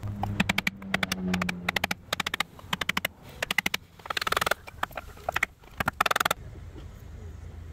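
Aerosol can of penetrating oil rattling in quick bursts of clicks as it is shaken, with a couple of short sprays hissing in between, aimed at a rust-seized piston.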